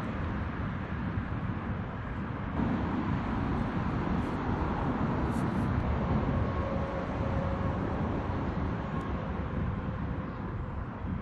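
Steady outdoor background rumble that grows louder about two and a half seconds in, with a faint steady hum over it in the second half.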